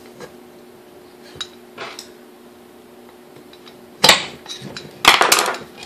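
Metal parts of a KitchenAid A9 coffee mill's motor assembly clinking and scraping against the housing as the assembly is worked loose and pulled out: a few light clicks, then two loud spells of rattling and scraping about four and five seconds in.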